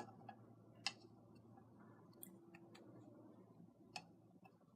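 Near silence broken by a few sharp clicks, about a second in and again about four seconds in, with fainter ticks between: small objects being handled on a table.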